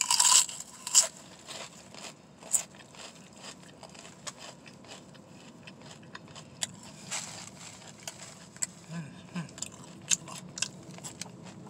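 Crunchy bite into a Herr's potato chip, loudest in the first second, followed by open-mouthed chewing with scattered sharp clicks and crunches.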